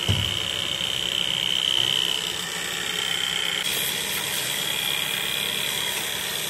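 Electric motor and belt-driven rotating drum running steadily, a mechanical rumble with a high whine over it. A short thump comes right at the start.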